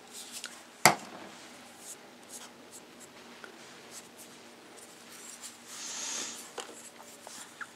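A sharp knock about a second in, then light scraping and tapping of a skewer working wet Hydrostone. Around six seconds in, a small hand spray bottle gives a short hiss of mist to dampen the plaster.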